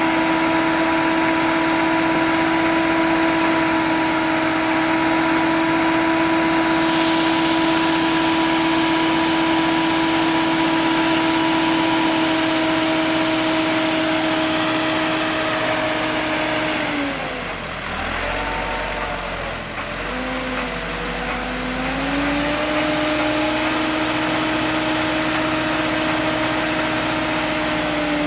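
Massey Ferguson 385 tractor's diesel engine running steadily while its hydraulics tip a trolley loaded with earth. Past halfway the engine note drops and wavers for a few seconds, then comes back up and holds steady as the bed reaches full tip.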